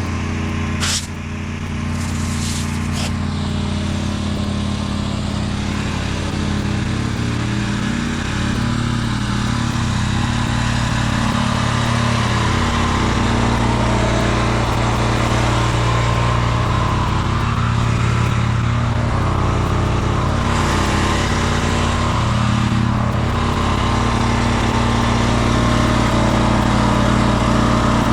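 Small gasoline engine of a pressure washer running steadily. A few short sharp hisses come in the first three seconds.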